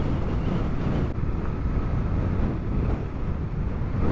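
Strong wind buffeting the microphone of a Honda CRF250L motorcycle riding through a sandstorm: a steady low rushing rumble, with the bike's engine running underneath.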